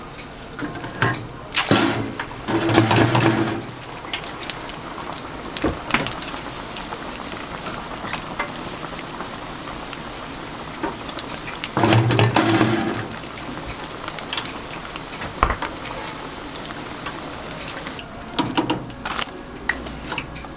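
Hot oil in a deep fryer sizzling and bubbling around a wire basket of fish cakes and dumplings, with light clicks and clinks of the metal basket. There are two louder swells with a low hum, about two seconds in and again around twelve seconds in.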